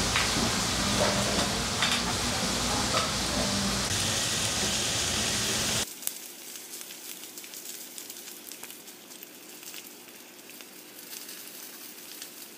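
Beef tripe and ribs sizzling and crackling on a hot griddle, with a few sharp clicks of scissors and tongs cutting the meat in the first seconds. About six seconds in it cuts abruptly to a quieter, thinner close-up sizzle.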